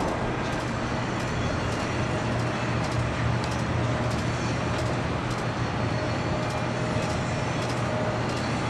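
Steady low engine hum over a wash of city traffic noise, with a faint thin whine above it.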